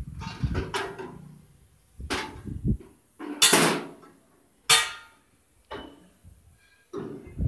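Irregular metallic knocks and clanks, roughly one a second with short gaps, from metal tools striking a sheet-metal box; some blows ring briefly.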